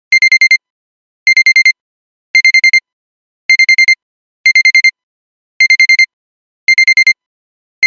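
Digital alarm clock beeping: quick groups of about five short, high-pitched beeps, one group about every second, seven groups in all.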